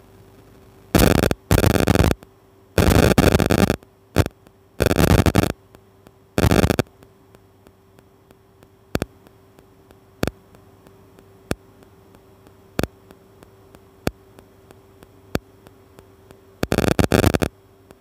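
Several loud bursts of scraping and rubbing as the probe carriage of a waveguide slotted line is slid by hand along the microwave test bench. A steady electrical hum from the bench equipment runs underneath. Later come faint regular clicks, about one every second and a quarter.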